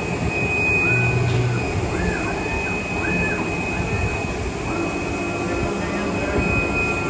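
Steady machine noise from a JUITA JT-1512B CNC template cutting machine, with a thin constant high tone over it. Several short whines rise, hold and fall between about one and four and a half seconds in.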